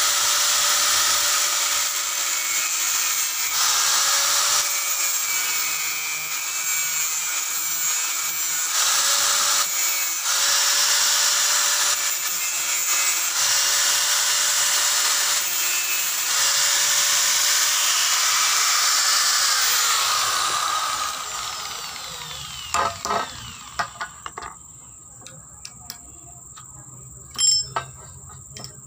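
Electric angle grinder with a cutting disc grinding into a metal pipe, a loud steady hiss over the motor's whine, with brief dips as the disc bites and lifts. About twenty seconds in it is switched off and winds down with a falling whine, followed by a few light metallic clinks.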